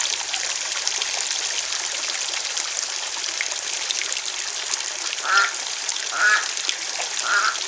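Steady splash of a small garden-pond waterfall, with a female duck quacking three times about a second apart in the second half.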